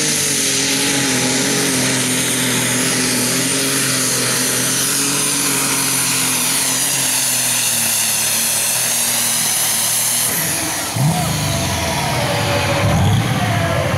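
Turbocharged light super stock pulling tractor running hard under load, with a steady engine note and a high whistle above it that glides in pitch. About ten seconds in, the whistle cuts off and the engine drops to a lower, uneven rumble as the pull ends.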